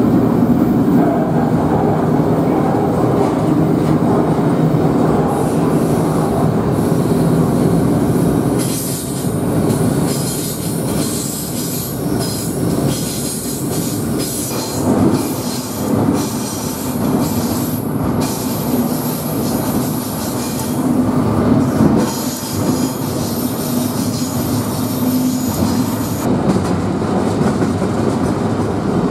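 Double-stack freight train running, heard from the deck of a well car: a steady loud rumble of wheels on rail, with high wheel squeal through most of the middle stretch, stopping a few seconds before the end.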